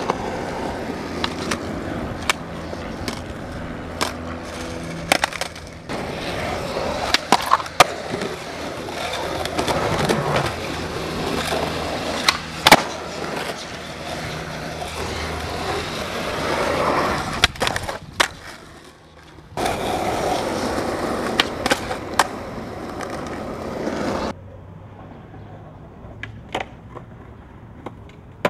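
Skateboards rolling over concrete and asphalt, with many sharp clacks of the board popping, hitting and landing. The rolling noise starts and stops abruptly a few times and is quieter near the end, where only scattered clacks remain.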